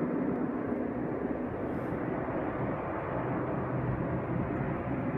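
Distant airliner's engines at takeoff power as it rolls down the runway: a steady noise with a low hum.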